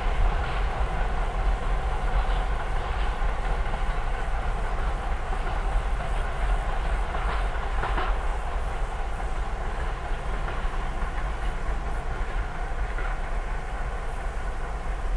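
ST43 diesel-electric locomotive (Romanian 060DA) hauling a freight train away into the distance: a steady diesel rumble with wheels running on the rails and a few faint knocks.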